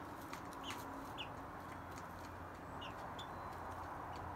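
Young chickens (pullets) giving a few short, high, falling peeps every second or so, over a steady background hiss.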